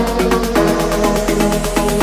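Electronic background music with a fast, steady beat and short synth notes changing in pitch.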